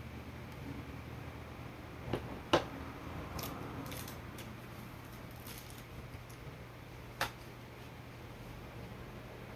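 Eating sounds from a man eating shredded cabbage with chopsticks: a few short, sharp clicks and crunches, the loudest about two and a half seconds in and another near seven seconds, over a low steady hum.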